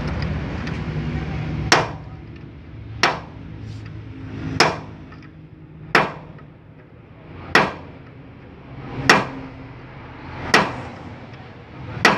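Sledgehammer striking a steel drift held against a Mitsubishi Fuso truck's rear wheel hub to drive in the new rear wheel bearing. About eight sharp metal-on-metal blows land evenly, roughly one every one and a half seconds.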